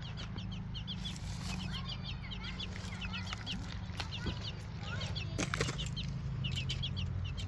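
A young Ameraucana pullet peeping over and over in short, high, falling chirps, with a few rattles or rustles, the loudest about five and a half seconds in.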